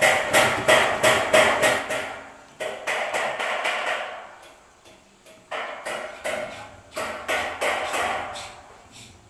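Rhythmic knocking or hammering, about three sharp strikes a second with a short ring after each; it dies away about four seconds in, pauses for about a second, then starts again.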